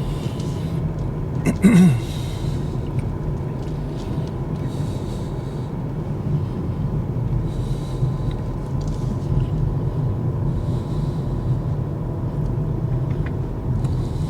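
Steady tyre and road rumble heard inside the cabin of a Kia EV6 electric car, driving over old, worn pavement. There is no engine sound.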